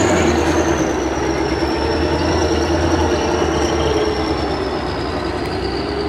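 Heavy diesel engine of a Kirovets K-700-series articulated tractor running hard under load as it climbs a dirt slope. It makes a steady low drone, with a high whine that slowly sinks and then rises again near the end.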